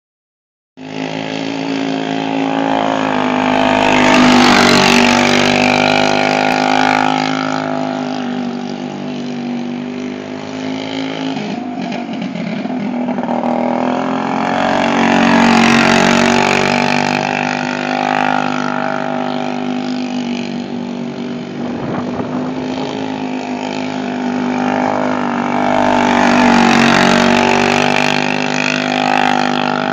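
Dirt kart's single-cylinder Briggs & Stratton Animal engine running at a steady, held speed around an oval, growing louder three times, about every 11 seconds, as the kart comes past on each lap.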